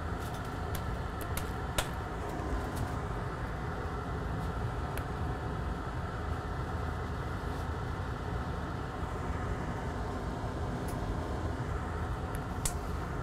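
Steady low mechanical hum, like a running fan, with a few light clicks from handling on top.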